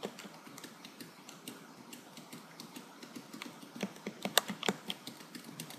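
Faint, scattered light clicks of a computer's keys and mouse buttons, coming quicker about four seconds in: repeated tries to work a mouse that is not responding.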